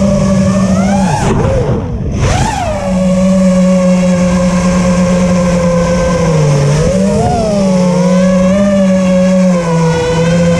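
Five-inch FPV racing quadcopter's brushless motors and propellers whining, heard through its onboard camera, with wind rush. The whine changes pitch with the throttle: about a second in it drops away briefly, then sweeps back up. Later it dips and climbs again before settling to a steady hover-level whine.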